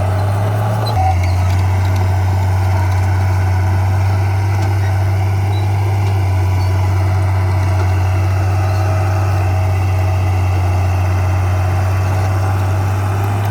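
Heavy diesel engine of earthmoving equipment running steadily, a deep drone whose note shifts slightly about a second in.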